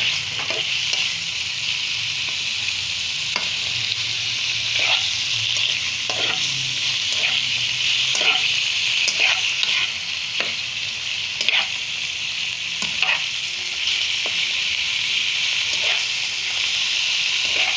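Raw boneless chicken pieces sizzling in a little oil in a pan, with a steady hiss, stirred with a spatula that scrapes and knocks against the pan about once a second. The chicken is being seared to cook off its rawness.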